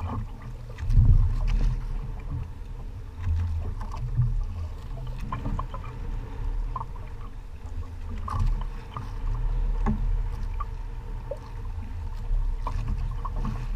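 Wind buffeting the microphone in uneven gusts, over water sloshing against the hull of a small outrigger fishing boat, with a faint steady hum and scattered light clicks.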